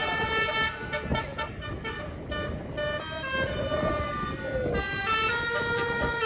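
A bus's basuri (telolet) horn playing a tune of several pitches at once: held notes at first, quickly changing notes from about a second in, and held notes again near the end.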